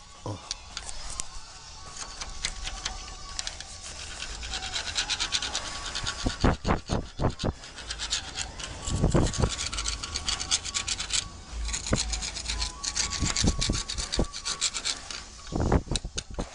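A hand scraper worked back and forth along the bars of an iron railing, scraping off rust in quick, rough, uneven strokes. A few louder knocks come in among the strokes.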